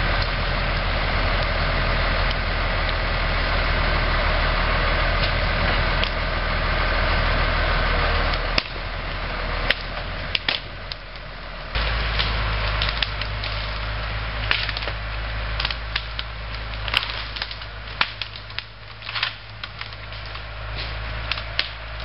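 Farm tractor engine running steadily as it drags a felled tree by chain through brush, its note changing about eight and twelve seconds in. From about nine seconds on, many sharp cracks and snaps of breaking branches and twigs.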